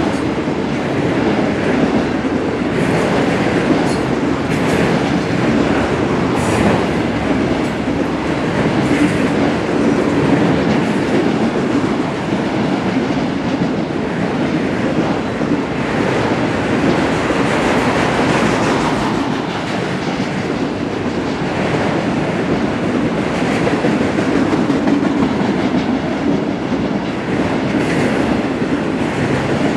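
Freight train of autorack cars rolling past: a steady, continuous rumble and rattle of steel wheels on the rails, with occasional sharper clicks.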